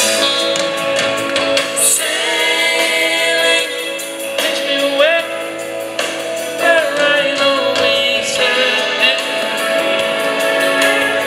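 Live band performance of a soft-rock song: male singing over electric guitar, drums and the rest of the band.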